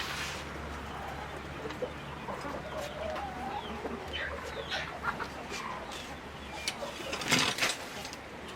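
Chickens clucking softly, with a few small clicks and a short scraping noise near the end.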